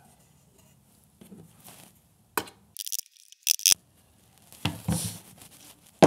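Claw hammer and steel nails being handled on a wooden workbench: a sharp knock a little past two seconds in, then a few scattered clinks and knocks.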